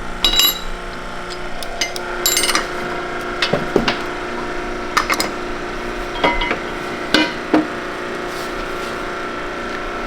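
Sharp metal clinks and knocks, about ten at irregular intervals, from steel transmission parts, an NV5600 main shaft with its bearing and a socket spacer, being worked on a shop press, over a steady hum.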